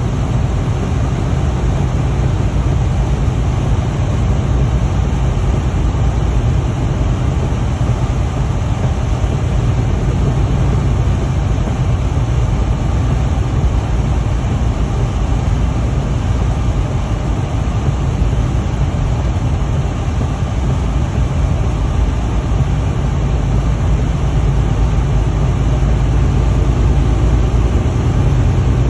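Steady low drone of a semi-truck's diesel engine with tyre and road noise, heard inside the cab while driving on a snow-covered highway.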